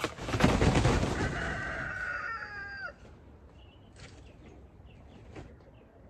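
A rooster crowing once: a loud, rough start that settles into a held note and drops in pitch at the end, about three seconds long.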